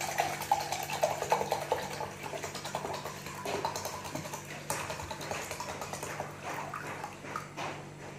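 Water pouring from a plastic pitcher into an enamel mug, a thin stream splashing into the mug, followed by scattered light knocks and clinks.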